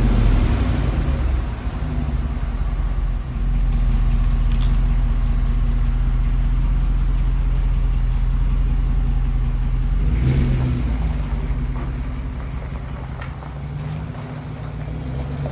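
2008 Dodge Ram 5.7 Hemi V8 running through a Flowmaster 40 Series chambered muffler with the factory resonator kept, idling steadily. About ten seconds in the engine picks up briefly as the truck pulls away, and the exhaust sound then fades off.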